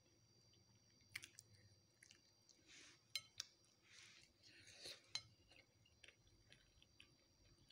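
Fingers picking up chips and lettuce from a plate: soft, faint scrapes and several sharp little clicks against the plate, the loudest about three seconds in and again about five seconds in.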